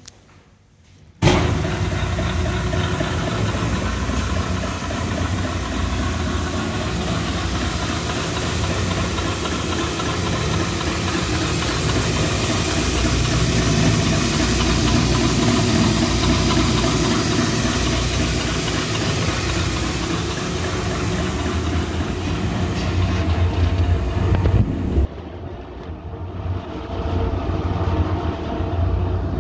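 Hollymatic 180-A mixer grinder switched on about a second in, its motor and gear drive then running steadily with a strong low hum. About 25 seconds in the sound drops to a quieter, still continuing run.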